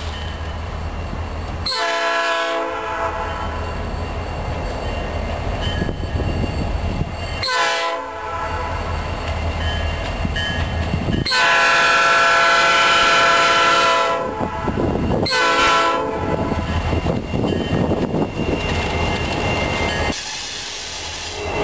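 Diesel freight locomotive horn sounding a series of blasts as the train approaches a grade crossing: a few short blasts and one long, loudest blast about halfway through, over the low steady rumble of the diesel engines. Then the locomotives pass close by with the wheels clattering on the rails.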